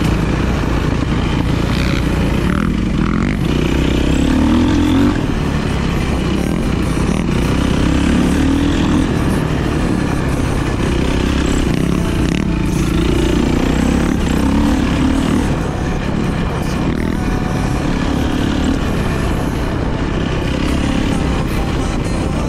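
450cc single-cylinder four-stroke dirt bike engine running under load, the revs rising and falling with the throttle every couple of seconds.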